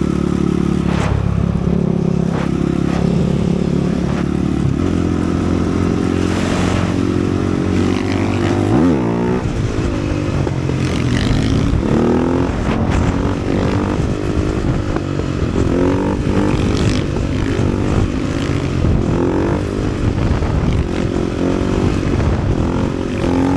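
450cc supermoto motorcycle engine running steadily at first, then from about five seconds in repeatedly revving up and dropping back.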